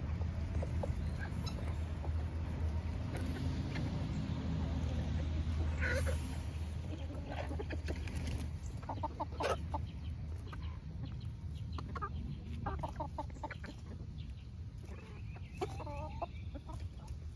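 A flock of backyard hens clucking in short, scattered calls while pecking at napa cabbage leaves on dirt, with sharp pecking clicks. A steady low rumble runs underneath.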